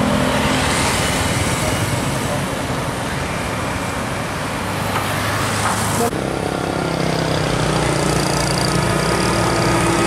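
Road traffic passing close by: a car drives past with engine and tyre noise. About six seconds in the sound changes abruptly to a tour bus's engine running steadily as the bus approaches round a bend.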